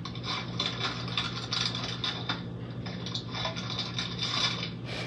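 Paper and plastic bags rustling and crinkling as takeout food and a cookie package are handled and set down, uneven crackles over a low steady hum.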